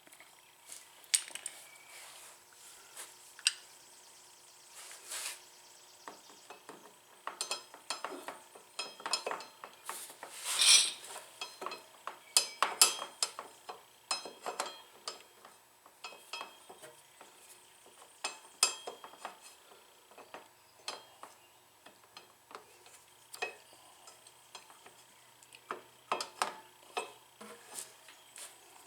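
Irregular metallic clicks and clinks as the Kawasaki Vulcan 900's new front brake pads and their anti-rattle springs are worked into the brake caliper by hand. A louder, longer scrape comes about ten seconds in.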